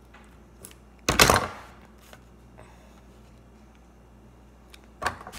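Handling noises as scissors snip the tip off a plastic piping bag: one loud knock about a second in, a few faint clicks, and a short cluster of knocks and rustles near the end.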